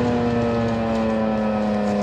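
Federal Signal 2001-SRN electronic civil defense siren sounding its steady alert tone, with the pitch sliding slowly and evenly downward.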